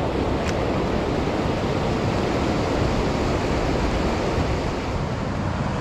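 Steady rush of water from a river rapid.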